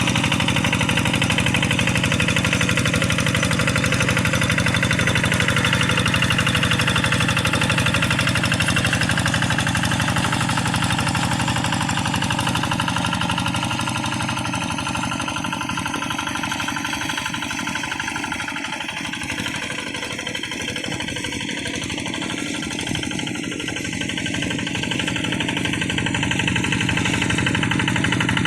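Kubota RD85DI single-cylinder diesel of a hand tractor running with a fast, even knocking beat; it eases off a little about halfway through and picks up again near the end.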